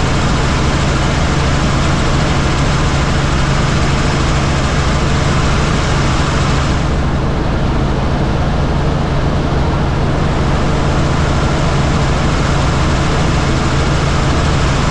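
Helicopter in flight: steady rotor and engine noise with a low, even hum. The high hiss thins for a few seconds around the middle, then returns.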